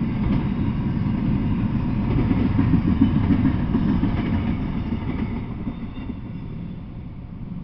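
Double-stack intermodal freight train rolling past: a steady low rumble of wheels on rail. It fades over the last couple of seconds as the end of the train moves off.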